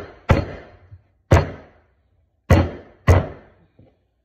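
Metal meat-tenderizer mallet smashing cucumbers on a wooden cutting board: four sharp blows at uneven intervals, each dying away quickly.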